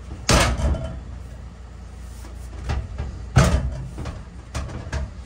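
Clunks and knocks from a bucket seat being pushed and worked into place on its mounts in a bare metal truck cab. One loud knock comes just after the start and another about three seconds later, with lighter knocks before it and near the end.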